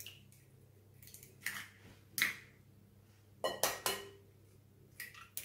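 Eggs tapped against the rim of a glass mixing bowl to crack them: several light knocks and clinks, two close together about three and a half seconds in with a brief glassy ring.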